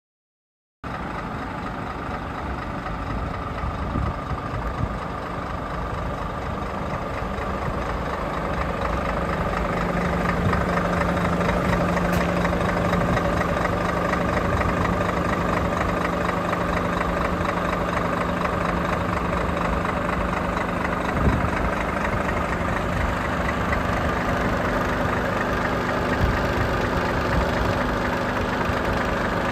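Scania 460R tractor unit's 13-litre inline-six diesel engine idling steadily. It cuts in about a second in and gets a little louder over the next several seconds.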